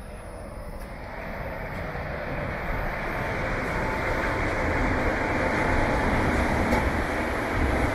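A vehicle approaching: a steady rumble and rush that grows louder through the first half and then holds.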